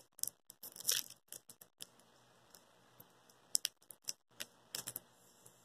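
Small plastic candy wrapper of a chewy milk candy crinkling and tearing as it is opened by hand: irregular crackles, with a denser rustle about a second in.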